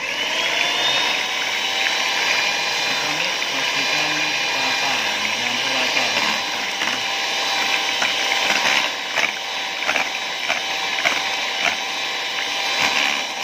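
Electric hand mixer switched on, its motor whine rising briefly and then holding steady as the twin beaters whisk egg into a thin butter-and-flour batter in a metal saucepan. Occasional clicks in the second half.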